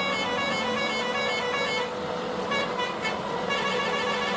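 A musical multi-tone vehicle horn plays a quick tune of short, repeated notes, telolet style, and cuts off suddenly near the end.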